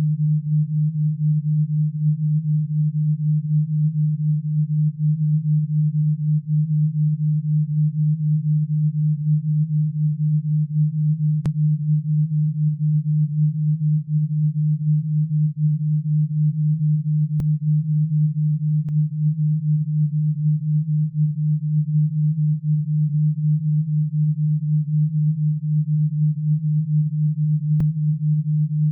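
A synthesized alpha-wave brainwave-entrainment tone: one steady, low, pure tone whose loudness wobbles quickly and evenly. It is pulsed in the 8–12 Hz alpha range meant to calm the listener.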